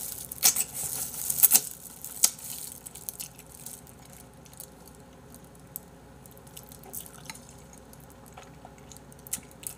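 Wet sucking and slurping while eating bone-in chicken feet in spicy broth. There are several sharp, smacking clicks in the first two seconds or so, then quieter wet chewing with only an occasional small click.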